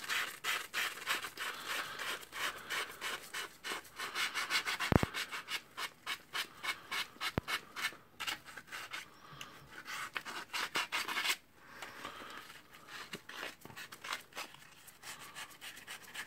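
P280 sandpaper rubbed by hand over the copper commutator of a Bosch GSR 18V Li drill's armature, cleaning off carbon-brush dirt that the repairer blames for the drill working intermittently. A quick run of short rasping strokes, several a second, that turns fainter and sparser after about eleven seconds, with two small sharp clicks midway.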